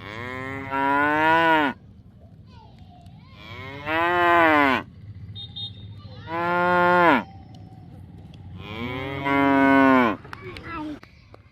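Buffalo lowing: four long, loud moos a couple of seconds apart, each dropping in pitch as it ends.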